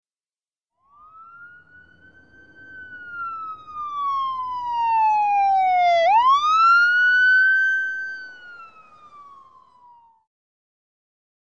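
Emergency-vehicle siren wailing in a single cycle: the tone climbs, slides slowly down, sweeps quickly back up about halfway through, then falls away and fades out near the end, over a faint low rumble.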